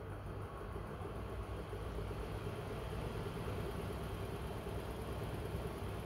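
Miele W1 front-loading washing machine running mid-cycle: a steady motor hum with the noise of the turning drum, growing slightly louder about a second in.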